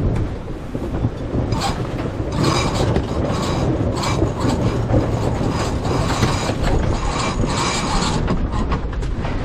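A sailboat's sheet winch being cranked with a handle to trim in a sail, its pawls ratcheting in repeated strokes from about a second and a half in until near the end, over a steady rush of wind and water.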